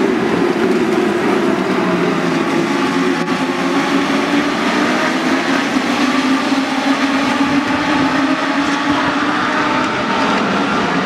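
A pack of Legends race cars, each powered by a Yamaha motorcycle engine, racing past, their engines overlapping in one steady, loud drone whose pitches drift slightly as the cars pass.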